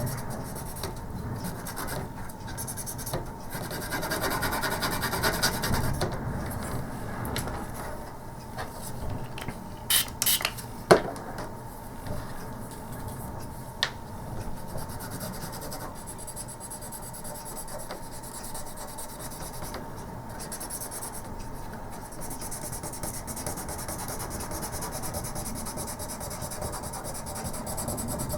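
Cotton bud scrubbing back and forth along a circuit board's edge connector to clean off dirt, a steady scratchy rubbing. A few sharp clicks come about ten and eleven seconds in, and one more a few seconds later.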